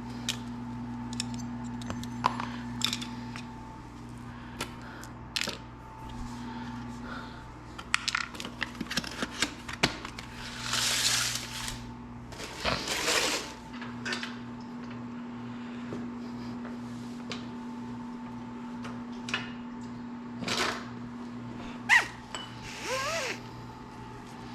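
Hand tools and metal motorcycle parts clinking and knocking in scattered, irregular taps, with a few short rustling or rattling bursts partway through and near the end. A steady hum runs underneath.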